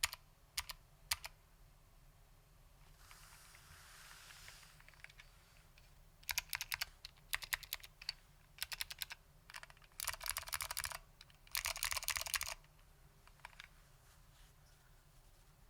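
Keyboard with SKCM Blue Alps switches and ABS keycaps being typed on. A few single keystrokes come first, then bursts of fast typing, sharp clicky keystrokes in quick runs, from about six seconds in until past twelve seconds.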